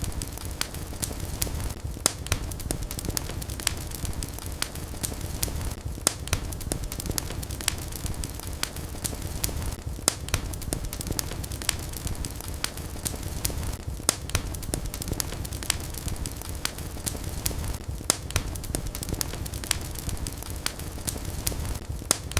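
Wood fire in a fireplace crackling, with irregular sharp pops and snaps over a steady low rumble of burning.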